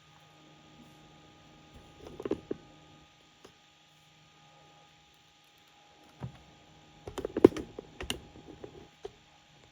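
Keys being typed on a laptop keyboard in two short bursts of quick clicks, the second a little after halfway.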